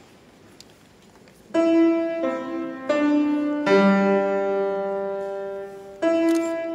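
Steinway & Sons grand piano played by a child: after a second and a half of quiet, notes are struck one after another. One is held for about two seconds, and a new note comes near the end.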